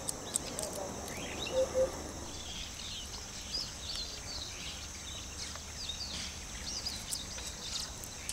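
Outdoor ambience of birds chirping over a steady high-pitched insect drone, with two short low notes about one and a half seconds in.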